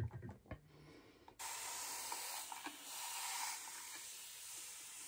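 Shaving brush working soap lather on the face: a faint, steady hiss that starts about a second and a half in, after a few soft taps.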